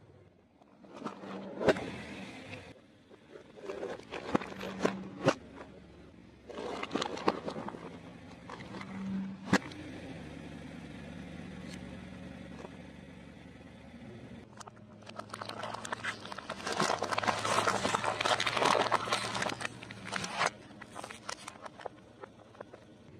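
A car tyre rolling over and crushing objects on concrete. Several sharp pops and cracks come in the first ten seconds, then about five seconds of dense crunching and crackling after the middle.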